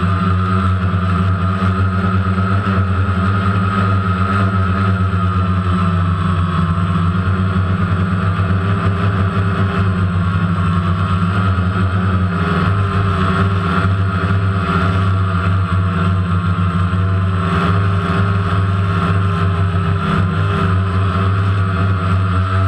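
DJI Phantom quadcopter's four motors and propellers running in flight, heard from the GoPro mounted on the drone: a loud, steady buzzing hum with a high whine that wavers slightly in pitch.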